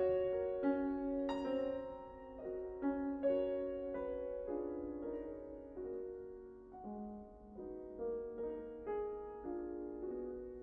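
Solo piano playing a slow, quiet classical passage, notes and chords sounding one after another and fading softer toward the end.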